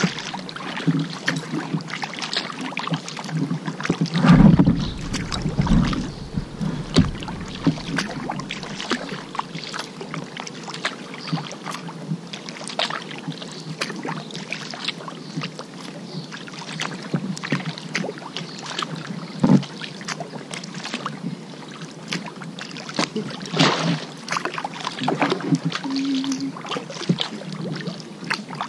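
Kayak paddling: a paddle dipping and splashing in river water, with drips and small splashes throughout and a louder, deeper bump about four seconds in.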